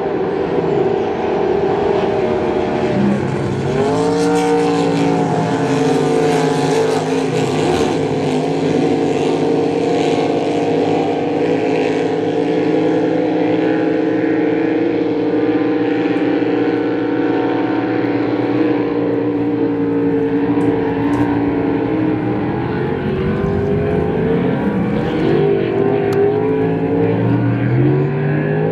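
Supercharged 6-litre race boat engines running hard at high revs. The pitch climbs about three seconds in, holds steady for a long stretch, then dips and rises again near the end as the throttle comes off and back on.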